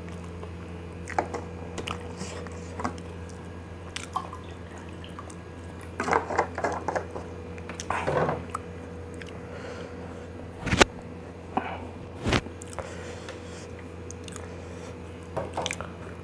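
Close-miked mouth sounds of eating spicy noodles: chewing and wet smacking with scattered small clicks, and two sharp knocks a second and a half apart a little past the middle, over a steady low hum.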